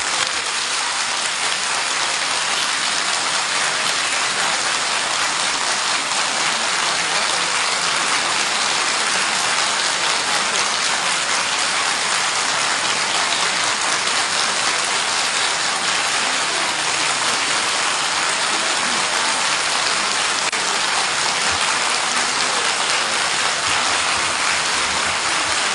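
Sustained applause from a large crowd of members of parliament clapping, steady and unbroken, with no pauses.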